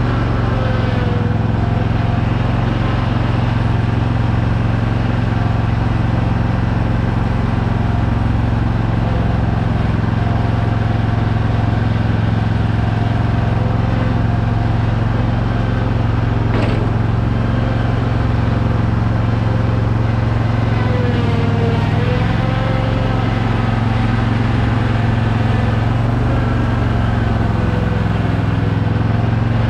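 Zero-turn mower engine running steadily, its pitch dipping slightly twice, with a single brief click past the middle.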